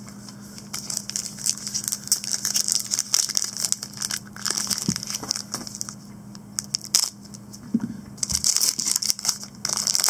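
Foil wrapper of a trading-card pack crinkling in bursts as it is handled and opened, over a faint steady hum.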